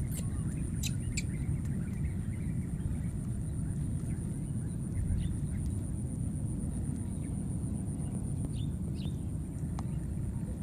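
A few short, faint, high squeaks from baby monkeys: a couple about a second in and a few more later. Under them runs a steady low outdoor rumble and a thin, steady high whine.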